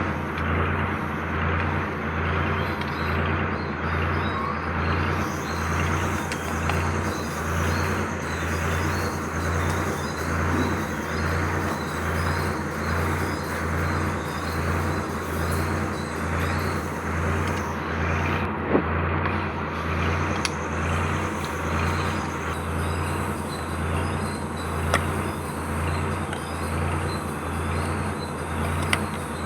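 A machine running steadily with a low hum that pulses evenly about once a second, with a few short clicks.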